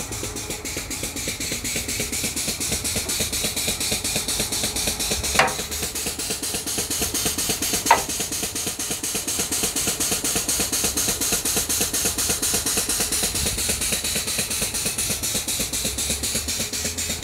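Machinery running steadily with a rapid, even pulsing that grows slightly louder, and two sharp clicks about five and eight seconds in.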